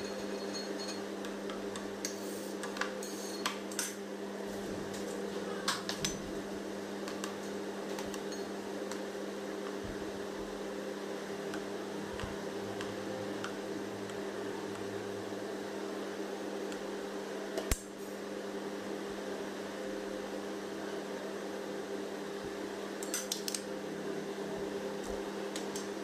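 Metal palette knife and cake scraper clinking and scraping against a metal cake turntable, with a few scattered sharp clinks, over a steady fan hum.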